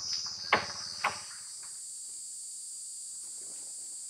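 Steady, high-pitched chirring of crickets, with two sharp knocks about half a second apart near the start.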